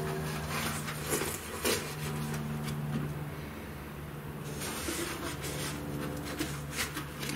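Rustling and crinkling of packing material and cardboard as hands rummage inside a cardboard shipping box, with a few sharp crackles over a steady low hum.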